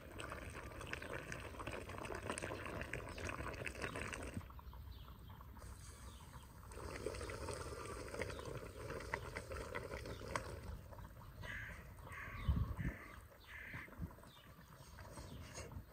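Goat-meat and vegetable stew bubbling and crackling in its juices in a cast metal pot, stirred with metal tongs. Near the end come four short calls in quick succession.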